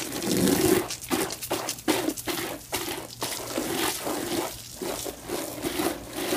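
Water from a garden hose spraying onto burnt cardboard boxes and wet concrete, a splashing hiss that swells and dips unevenly as the stream plays over them, dousing the remains of the fire.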